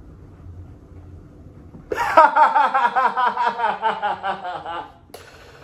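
A man laughing: about three seconds of quick pulsed laughter, about five pulses a second, starting two seconds in and sinking in pitch as it goes.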